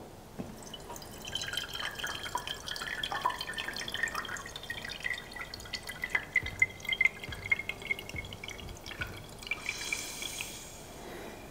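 AeroPress Go plunger pressed slowly down, pushing cold-brewed coffee through the paper filter into a mug: dripping with a thin high wavering whine and small ticks as it goes down. About ten seconds in comes a short hiss of air forced through the grounds, the sign the coffee is fully pressed and ready.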